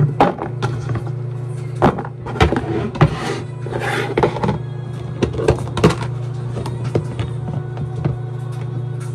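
Cut cucumber chunks dropping into a clear plastic food container, then the container being handled and set down: a series of short knocks and thunks, over background music.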